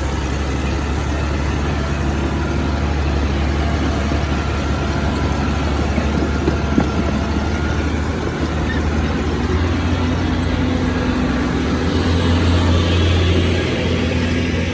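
Heavy diesel engines of dump trucks and earthmoving machines running steadily. The low engine note grows stronger from about ten seconds in and eases off near the end.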